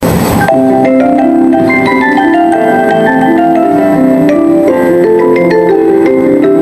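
JR Hokkaido train's onboard announcement chime: a melody of many short, quick bell-like notes, opening with a brief burst of noise.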